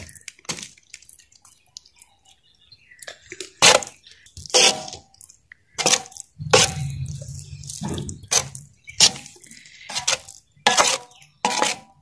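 Metal spoon stirring and spreading thick, wet besan barfi mixture in a steel tray. It knocks and scrapes against the metal with about ten sharp clinks and wet slaps, roughly one a second, starting about three seconds in. A low hum runs under them for a few seconds in the middle.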